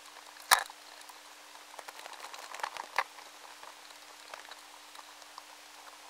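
Indian meal moth (Plodia interpunctella) caterpillar weaving its silk, picked up by a high-sensitivity vibration sensor. Scattered faint clicks and crackles, with a sharp click about half a second in and a cluster of louder clicks between two and three seconds, over a steady low hum.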